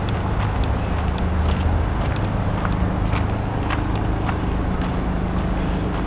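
Steady low rumble of distant city traffic, with scattered faint light clicks over it.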